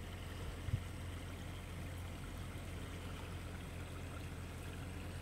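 Steady rain falling onto standing floodwater and wet grass, an even hiss.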